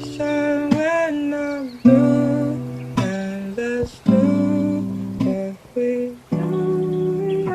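Music: a slow lo-fi track of plucked guitar chords with a soft, wavering sung vocal.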